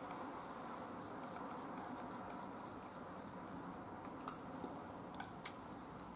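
A metal spoon scraping and clicking lightly in a small plastic yogurt cup, with a few sharper clicks about two-thirds of the way in, over a steady low room hum.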